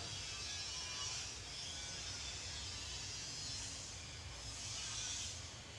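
Hands rubbing along skin in hilot massage strokes: soft swishing swells that come and go every second or two, over a steady low room hum.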